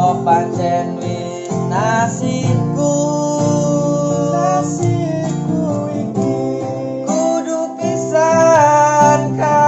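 Intro music: a song with plucked guitar and a singing voice carrying a gliding melody.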